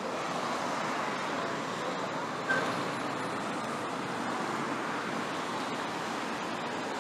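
Steady road traffic noise from cars and other vehicles driving along a busy city avenue, with one short, sharp high-pitched blip about two and a half seconds in.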